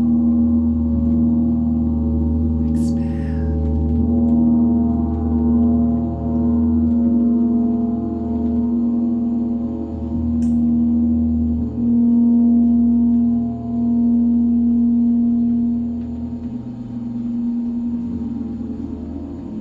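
Sound-bath overtone instruments ringing in a sustained, layered drone of many steady tones, one strong low-mid note on top, swelling and fading every couple of seconds. A brief high scratch comes about three seconds in and a click about ten seconds in.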